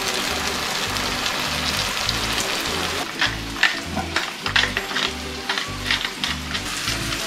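Food frying in butter in a pan: a steady sizzle with crackling pops that grow thicker from about three seconds in. Background music with a steady bass beat plays underneath.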